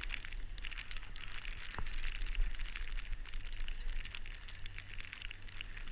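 Snowboard sliding slowly over snow: a steady crackling scrape of the board on the snow, with many small gritty clicks.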